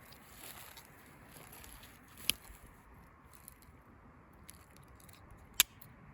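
Two sharp clicks about three seconds apart, over faint crackling handling noise.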